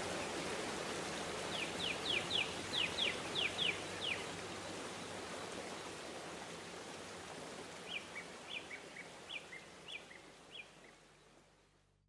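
A waterfall rushing steadily, with a bird calling over it: first a quick run of about nine falling notes, then a series of two-note calls, high then lower. The whole sound fades out near the end.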